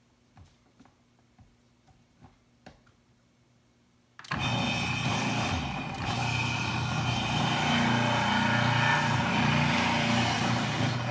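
Breville Sous Chef food processor switching on about four seconds in and running loud, its motor tone wavering as a red beet is pushed down the feed chute onto the shredding disc. A few faint clicks come before it.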